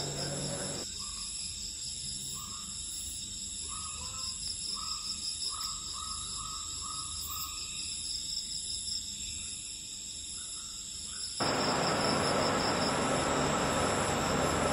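A steady high-pitched insect chorus, like crickets or cicadas trilling, with a run of short repeated calls about twice a second in the middle. It cuts off suddenly about eleven seconds in, replaced by an even hiss of room noise from air conditioners.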